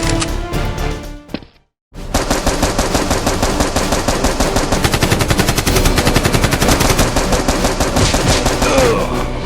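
Rapid automatic gunfire sound effect, a long unbroken burst of machine-gun fire over background music, starting after a brief silence about two seconds in.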